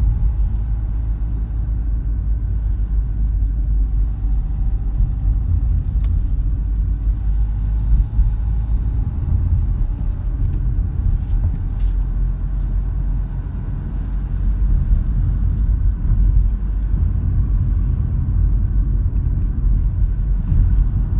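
Steady low rumble of a car driving along a village road, heard from inside the cabin.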